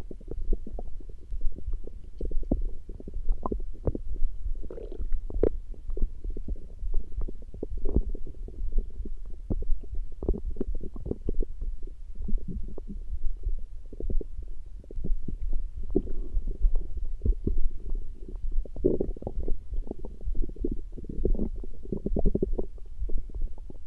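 Human stomach growling: a continuous run of short, low gurgles and pops.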